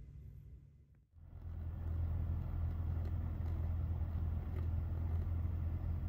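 Portable propane radiant heater burning: a steady low rumble with a hiss over it, starting abruptly about a second in.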